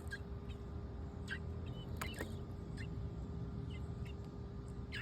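Short, high bird chirps, about five of them scattered through, over a low, steady background rumble.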